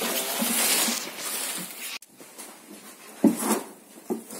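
Rustling and handling noise as a phone camera is moved and set down, cutting off abruptly about halfway through, followed by a few scattered soft thumps.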